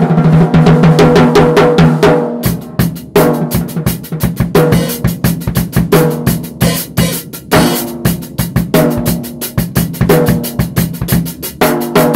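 Mapex Armory drum kit played in a groove, featuring the Armory Exterminator 14x6.5 birch/walnut snare, tuned down. It opens with a fast run of strokes over ringing drums, then settles into a steady beat with cymbal hits from about two and a half seconds in.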